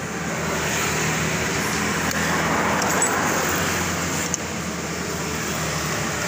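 A road vehicle passing by: a steady rushing noise that swells over the first couple of seconds and slowly eases off after the middle, with a light click about four seconds in.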